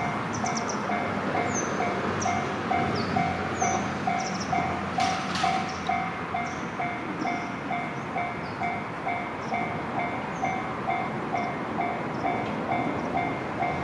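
Japanese railway level-crossing alarm ringing its repeating electronic ding, about two strikes a second, over the steady running noise of a train on the JR Gotemba Line.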